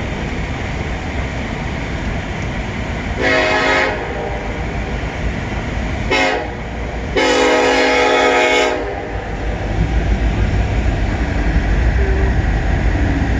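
Diesel locomotive horn on a CN freight train sounding at a road crossing: three blasts, a short one about three seconds in, a very brief one around six seconds and a longer one about a second and a half long. A steady low rumble of the approaching train grows louder after the last blast.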